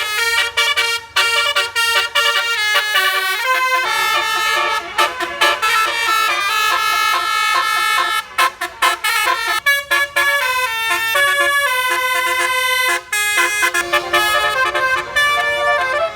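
A bus's basuri telolet horn, a multi-note musical air horn, playing a quick tune of changing notes in short phrases, with a low rumble underneath from about four seconds in.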